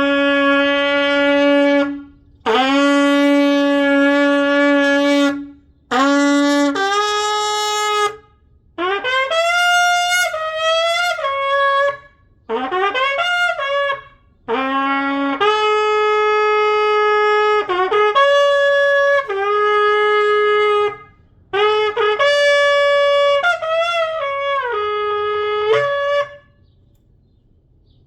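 A 51-inch kudu shofar with a freshly cut, still rough mouthpiece, blown in about seven long blasts. Some open on a low note and jump up; others step between higher notes with short slides between them.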